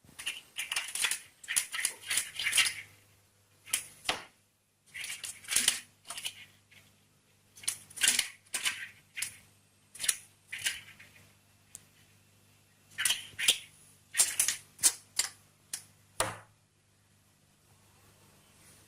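Woodpecker pecking in bursts of quick, sharp taps, striking at its own reflection, with short pauses between bursts. A faint low hum runs underneath from about two seconds in.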